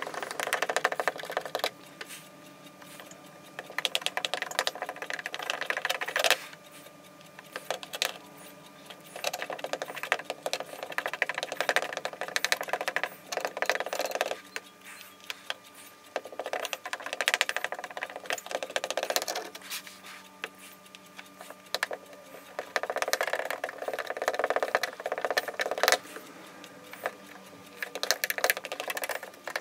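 Hot plastic-welding iron's metal tip scraping and rattling over the polyethylene tank surface and embedded mesh. It comes in about six scratchy bursts of a few seconds each, with short pauses between, over a faint steady hum.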